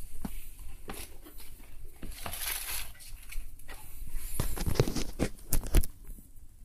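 Handling noise from a plastic tool case being opened: scattered clicks and knocks, with a short rustle about two seconds in and a quick run of clicks near the end.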